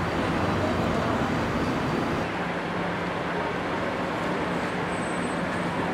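Steady outdoor background noise: a low hum under an even hiss, with no distinct knocks or splashes standing out.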